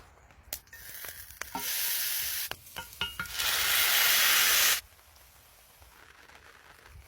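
Food sizzling in a hot pan, in two loud bursts of hiss that each start and stop abruptly, with a few utensil clicks before and between them.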